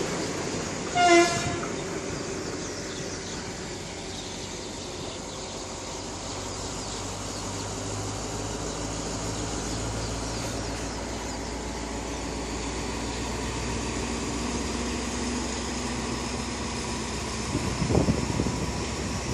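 A train horn gives one short toot about a second in, then a diesel locomotive's engine runs steadily at a low hum. A couple of low knocks come near the end.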